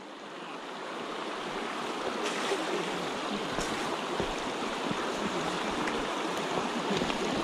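A shallow, rocky mountain stream running over stones and through small riffles, making a steady wash of moving water.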